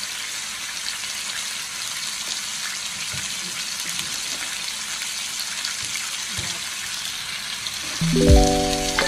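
Chicken pieces sizzling in a stainless steel wok: a steady hiss with faint crackles. Background music with a beat comes in near the end.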